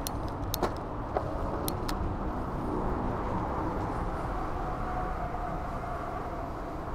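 E-bike being ridden along a paved path: steady tyre and wind noise, with a few sharp clicks in the first two seconds and a faint steady whine from about four and a half seconds in.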